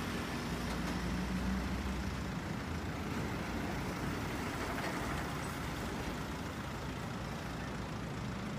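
Truck engine running steadily under a truck-mounted aerial work platform as its boom is raised and moves, a low even hum with a faint steady drone.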